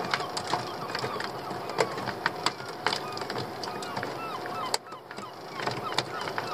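A flock of seabirds calling over open water: many short, overlapping calls, with scattered sharp clicks.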